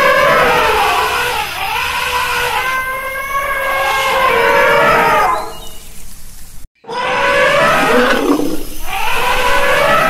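Elephant trumpeting: loud, drawn-out calls with wavering pitch. They fade out a little past halfway, break off to silence for an instant, then the calls start again.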